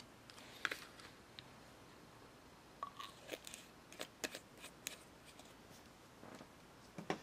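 Faint, scattered light clicks and taps of small hard objects being handled, with a brief squeak about three seconds in.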